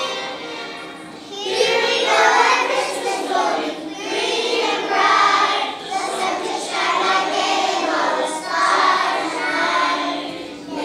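Children's choir singing a Christmas song in phrases of about two seconds, the voices coming in about a second and a half in after a fading held note.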